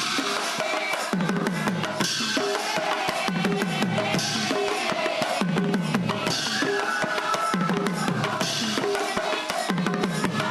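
Devotional kirtan percussion: hand cymbals clashing with a drum in a steady repeating beat. Low drum strokes that fall in pitch come about once a second, and bright cymbal crashes come about every two seconds.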